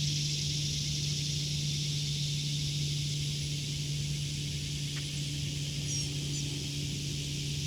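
Cicadas droning steadily in a high-pitched chorus, over a steady low hum. A bird gives a few short chirps about six seconds in.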